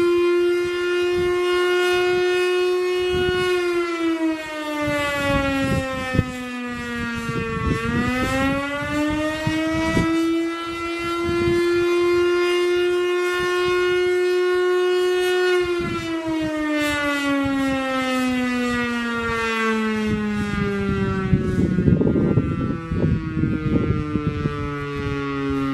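Federal Signal STL-10B single-phase electromechanical siren sounding the attack signal: a deep, bassy wail that holds high, dips and climbs back about a third of the way in, then slides slowly down in pitch over the last part. Wind buffets the microphone, heavier near the end.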